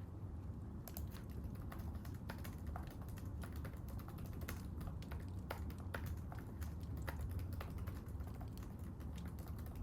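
Typing on a computer keyboard: irregular, quick keystroke clicks over a steady low rumble.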